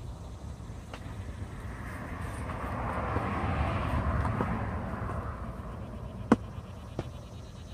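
A car passing by, its noise swelling and fading over about four seconds, then a sharp tap about six seconds in and a fainter one a moment later.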